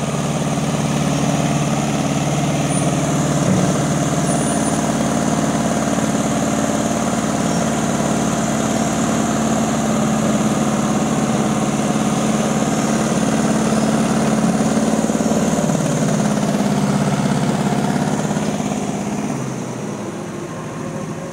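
Diesel engines of a Changlin wheel loader and a Landini farm tractor running hard under load as the loader pushes the mud-stuck tractor and its loaded trailer. The engine note shifts about three-quarters of the way through and the sound grows quieter near the end.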